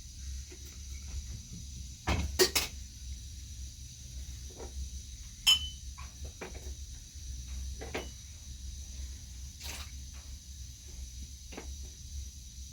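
A few scattered knocks and clicks over a steady low rumble. The loudest are a quick run of three knocks about two seconds in and a single sharp click a few seconds later, with fainter taps after.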